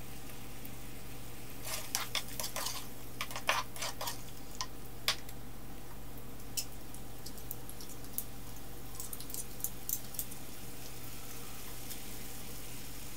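Thick curry sauce with prawns and vegetables simmering in a frying pan, bubbles popping in irregular clusters of small pops. A steady low hum runs underneath.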